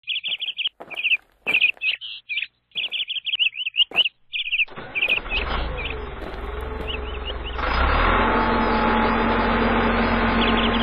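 Small birds chirping in quick repeated bursts. About halfway in, a low engine rumble comes in over them and gets louder near three-quarters through, with a steady hum.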